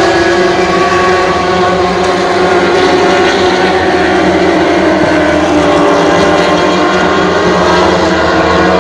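A pack of superbike racing motorcycles at speed, several engine notes sounding together, steady and loud.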